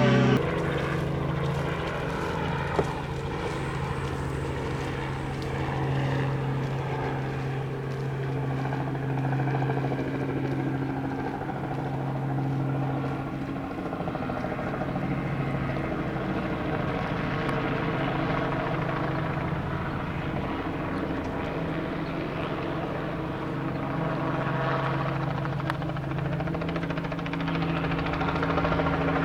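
Robinson R44 Raven helicopter in flight, a steady droning hum of its rotor and engine.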